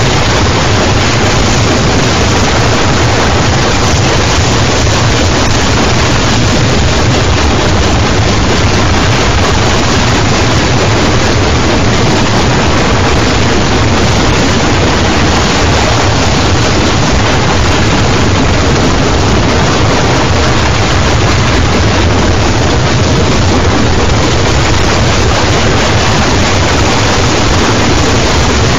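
Loud, unchanging wall of harsh electronic noise from a G.M.X. 802V unit, a dense hiss-and-rumble that never pauses.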